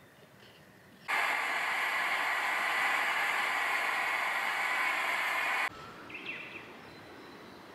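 A pressurised liquid-fuel burner in a brass-tank heater hissing loudly and steadily. The hiss starts abruptly about a second in and cuts off about four and a half seconds later. A few faint bird chirps follow near the end.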